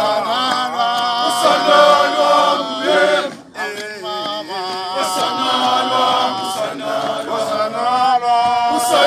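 A group of men chanting a South African liberation struggle song in chorus, with a short break between phrases about three and a half seconds in.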